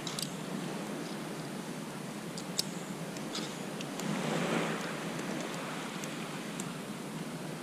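Small clicks and rustles of hands wrapping elastic bait thread around a prawn bait, over a steady background hiss that swells briefly about four seconds in.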